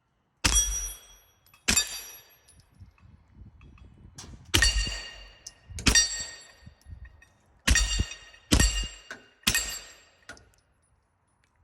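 Seven suppressed 9mm pistol shots from a CZ P01 Omega with a ThunderBeast Fly 9 suppressor, fired singly at uneven intervals, each a sharp crack followed by a brief metallic ring.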